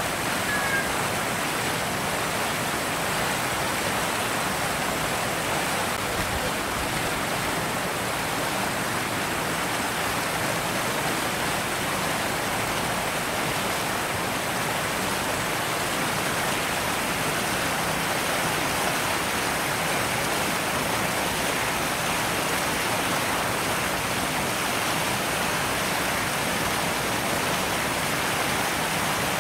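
A steady, even rushing hiss that does not change.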